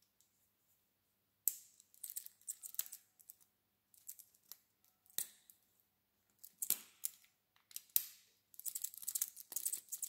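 Small hard plastic and metal parts clicking and scraping as a clear plastic lock cylinder is handled and a blue-ended part is worked into it: separate sharp clicks, the loudest about a second and a half in and near the middle, then a quick rattling run of clicks near the end.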